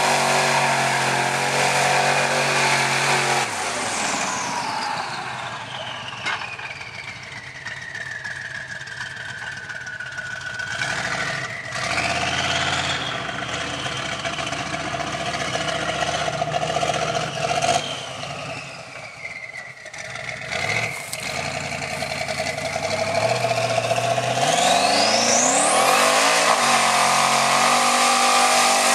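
Lifted mud truck's engine revving hard as it plows through a mud hole. It falls off and grows faint as the truck drives away, with distant revs rising and falling. Near the end it swells again into hard, rising revs as the truck charges back through the mud.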